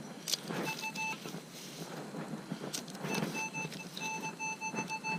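Metal detector sounding its buzzing target tone in quick pulses, once briefly about a second in and again for about two seconds from three seconds in, as the coil passes over a buried metal target; a few sharp knocks in between.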